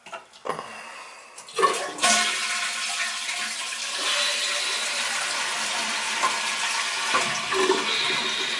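A few knocks and clicks, then about a second and a half in a toilet flushes with a sudden rush of water that carries on steadily as the tank refills. The flush tests the newly replaced tank-to-bowl bolts for leaks.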